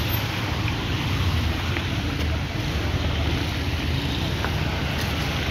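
Steady rush of water on a flooded street, with a low rumble of wind on the microphone.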